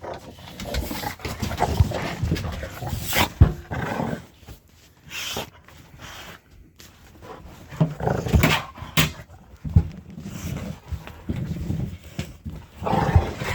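Two dogs play-fighting: dog noises and scuffling in irregular bursts, with a quieter lull midway.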